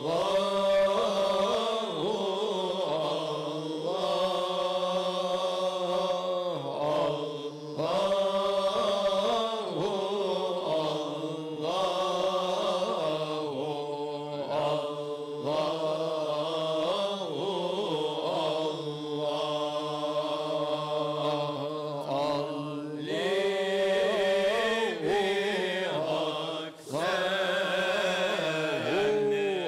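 A male Sufi ensemble chanting a zikr ilahi in makam hicaz: sung melodic phrases over a steady low drone held beneath them.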